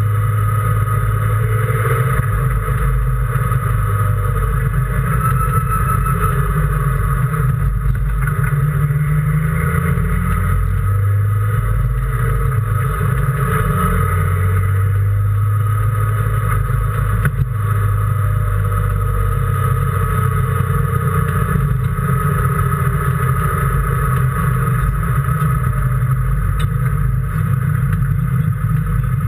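Racing car engine running hard, heard from inside the car, its pitch climbing and dropping with throttle and gear changes.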